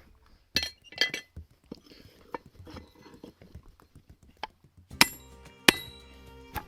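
Blacksmith's hammer striking hot steel on an anvil: a few sharp ringing clinks with lighter taps between. The two loudest blows come near the end.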